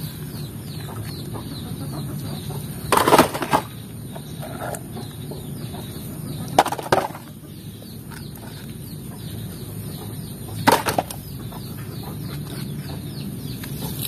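Mud-caked plastic toy vehicles being picked up and set down into a plastic tub: three short clattering knocks a few seconds apart, over steady low background noise.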